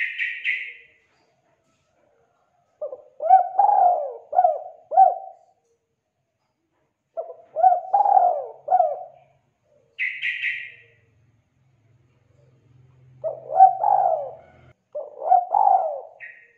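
Spotted dove (tekukur) cooing: four phrases of several coos each, like a tutor call used to get a quiet dove to sing. Twice, near the start and about ten seconds in, there is a short, higher chirping sound.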